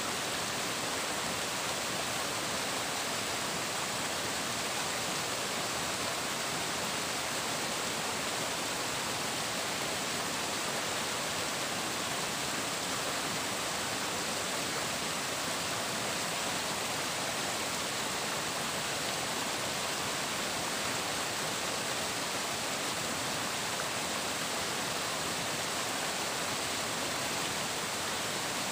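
Flowing water running in a steady, even rush that does not change.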